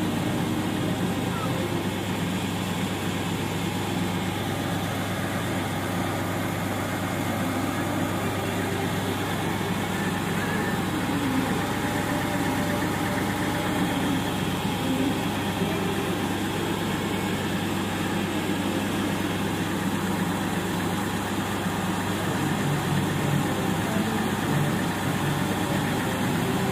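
Farm tractor's diesel engine running steadily, driving the hydraulic tipper that slowly raises a trolley heaped with soil.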